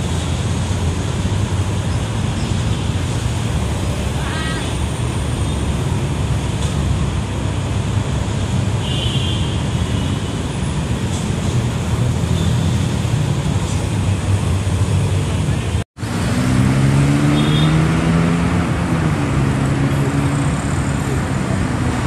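Steady noise of city road traffic. After a short break about 16 s in, an engine note rises slowly in pitch, like a vehicle passing.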